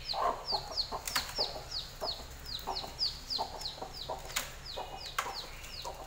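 A newly hatched country-chicken chick peeping over and over, short high peeps that fall in pitch, about three a second. Underneath are the broody hen's low clucks and a few sharp knocks of the plastic crate as she is handled.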